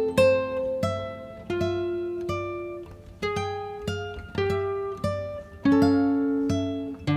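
Background music: an acoustic guitar plucking a slow run of single notes and chords, roughly one or two a second, each ringing out and fading before the next.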